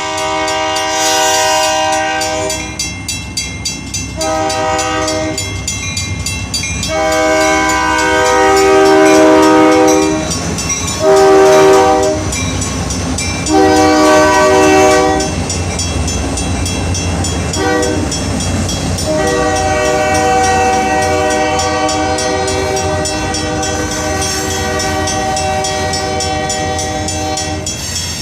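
Diesel freight locomotive's air horn sounding a series of long and short blasts, the last one held for about eight seconds, over the low rumble of the passing train.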